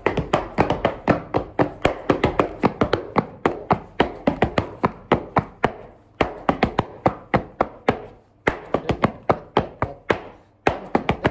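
Heavy black leather boots stamping and tapping out a fast Chuvash folk-dance step on a hard floor, about five to six strikes a second in quick runs with a few brief breaks.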